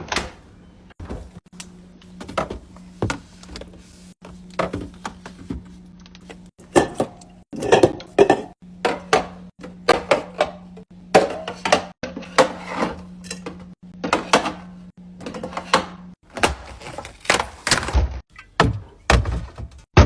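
Restocking a mini fridge: a quick run of knocks, taps and thunks as drinks and items are set down and packed in, with a steady low hum underneath until near the end.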